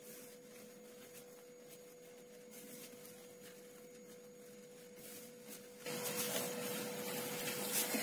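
Quiet room tone with a faint steady single-pitched hum; about six seconds in a soft even hiss comes up.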